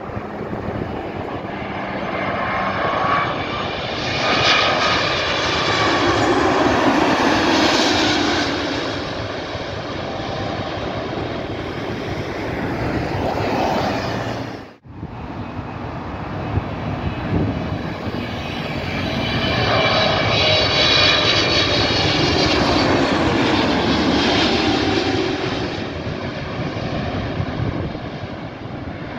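Jet airliners passing low overhead on landing approach, twice: each time the engine rumble and whine build, peak and fade, with the whine falling in pitch as it passes. The first is an Airbus A330-300 with Rolls-Royce Trent 700 engines. The sound cuts off suddenly about halfway through, between the two passes.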